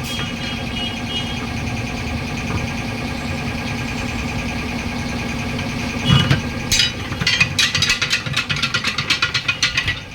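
A steady, pulsing machine hum like an idling engine or running compressor, with a quick run of sharp metallic knocks starting about six seconds in as the truck wheel's lock ring is worked loose.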